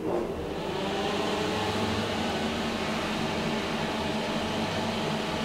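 SMW machine-room-less traction elevator car travelling down: a steady motor hum with several tones under a rushing ride noise that builds over the first second.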